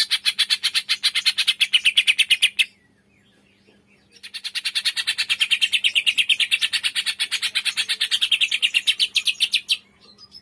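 A songbird's rapid trill of evenly repeated high notes, about ten a second. A long trill ends a couple of seconds in, and after a short pause a second, longer trill builds up and runs until near the end, over a faint steady low hum.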